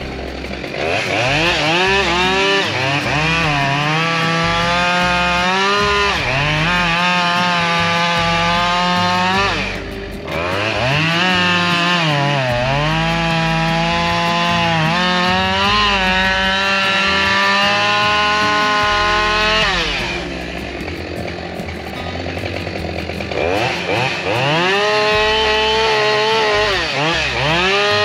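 Husqvarna 572XP two-stroke chainsaw running at full throttle, cutting through a dead fir log, its pitch sagging and recovering again and again as the chain bites into the wood. The throttle eases off briefly about ten seconds in and again for a couple of seconds just past twenty seconds, then the saw revs back up into the cut.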